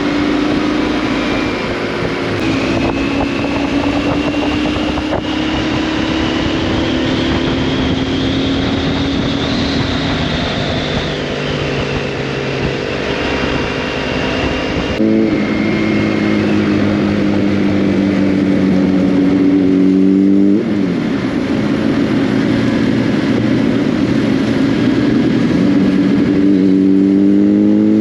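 Motorcycle engine under way, pulling through the gears: its pitch climbs slowly, drops sharply at an upshift about halfway through and again a few seconds later, then climbs once more to another shift near the end, over steady wind and road noise.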